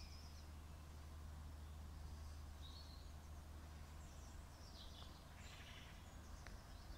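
Quiet outdoor ambience: a few faint bird chirps and short trills over a steady low background hum.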